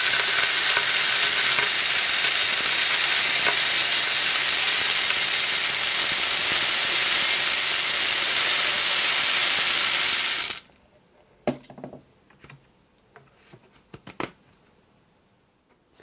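Lead shot pouring from a plastic container into a cardboard poster tube: a steady hiss of pellets that stops suddenly about ten and a half seconds in, followed by a few faint knocks.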